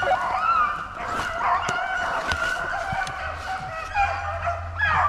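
A pack of rabbit hounds in full cry: several dogs baying and howling over one another as they run a rabbit.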